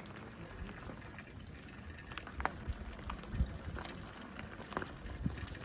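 Bicycle rolling along a rough dirt and stone path: a steady low rumble from the tyres, with a few short knocks and rattles from bumps.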